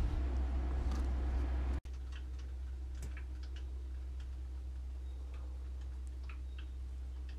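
Steady low hum with scattered light clicks and ticks. The clicking is dense for the first two seconds, then after a sudden break it thins to occasional ticks over the hum.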